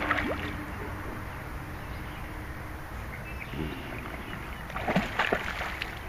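A hooked eel splashing at the water's surface beside a small boat, with a sharp knock at the start and a cluster of short splashes and knocks about five seconds in.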